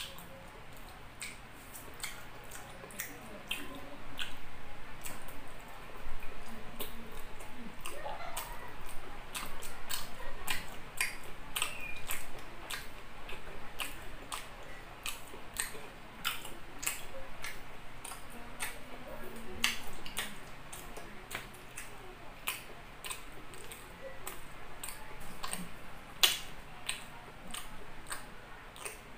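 Close-miked wet chewing and lip smacking of chicken liver adobo being eaten by hand: a steady run of small moist clicks and smacks, with one sharper snap near the end.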